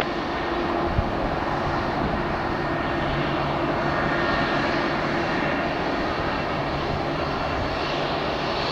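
Airliner jet engines running steadily: an even rushing hum with a faint low drone, no spool-up or fade.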